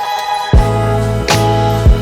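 Background music with a steady beat: deep bass notes under held chords, with kick-drum thumps about every three quarters of a second.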